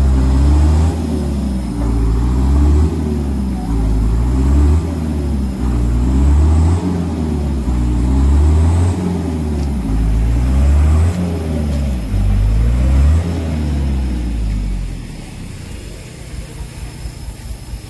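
Dump truck's diesel engine revving hard in repeated surges about every two seconds as the stuck truck strains to climb out of deep mud, then dropping back to a low, even idle about fifteen seconds in.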